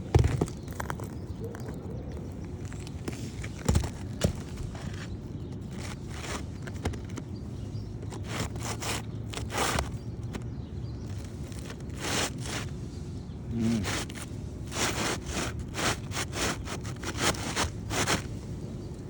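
Scraping and rustling from hand work on roof shingles during a shingle replacement, with a sharp knock at the start and another about four seconds in, then a run of short scrapes.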